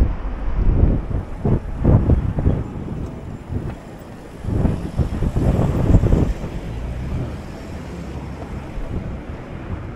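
Wind gusting hard across the microphone in a sandstorm: two bouts of low buffeting rumble, easing to a steadier rumble after about six seconds.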